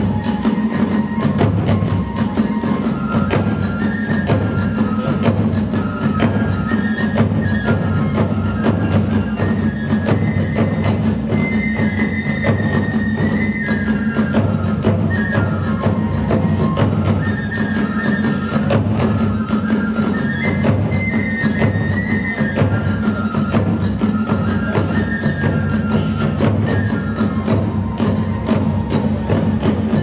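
Kagura ensemble music: a transverse bamboo flute playing a stepping melody over continuous, dense drumming and cymbal strokes.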